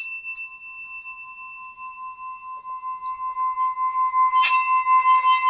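Brass hand bell struck once, then rubbed around its rim with a wooden stick so that a steady high ring is held and swells louder with a regular wavering pulse.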